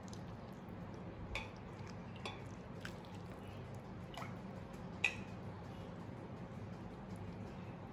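Gravy dripping and splashing from a ladle onto a plate of rice vermicelli: a few faint wet drips and ticks, the sharpest about five seconds in, over a low steady hum.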